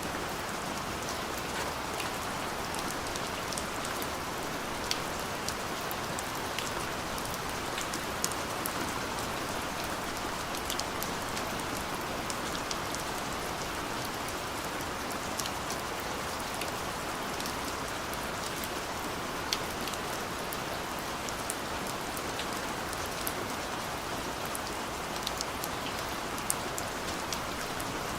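Steady rain falling, with many separate drops ticking sharply on a surface over the even hiss.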